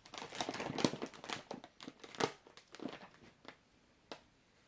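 Plastic snack wrappers crinkling and rustling as packets are rummaged through and moved about, busiest in the first second or so, then a few separate crackles.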